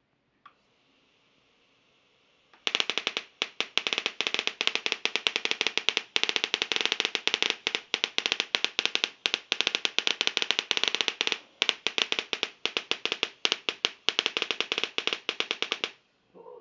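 High-voltage sparks crackling in a fast, irregular string of sharp snaps for about thirteen seconds, from a foil-lined Leyden jar charged by two series-connected TV flyback transformers. A faint high whine from the flyback driver comes first, about half a second in.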